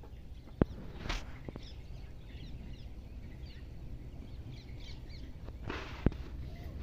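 Birds chirping, many short calls one after another, with three sharp clicks: about half a second in, about a second in and near the end.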